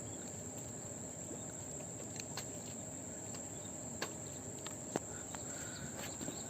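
Insects chirring in one steady, high-pitched drone, with a few faint clicks here and there.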